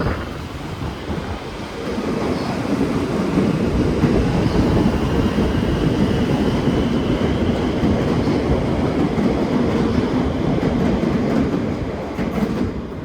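Siemens Nexas electric multiple unit rolling past as it departs, its running noise growing louder about two seconds in, holding steady, then fading away near the end.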